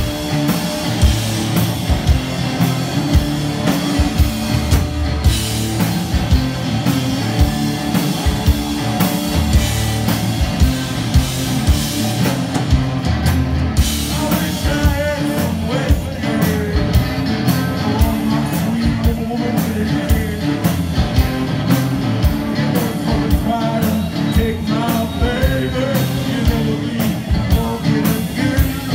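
Live rock band playing: drum kit beating steadily under guitar, with a voice singing over it from about halfway in.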